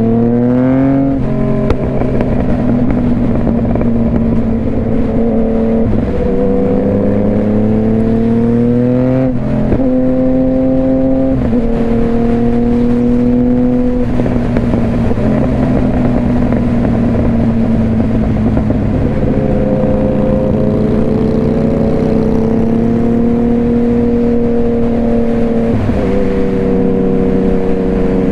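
Yamaha FZ-09's inline three-cylinder engine pulling through the gears from the rider's seat: the pitch climbs, then drops sharply at each upshift, about four times, with a stretch of steady cruising in the middle. Wind rush from riding speed runs under it.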